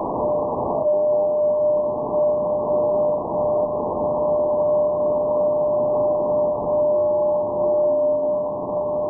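SSB shortwave receiver audio: a steady beat tone from Radio Prague's carrier on 21745 kHz over band-limited receiver hiss. About seven seconds in, a few short tones at higher and lower pitches sound briefly: Doppler-shifted reflections of the carrier off meteor trails.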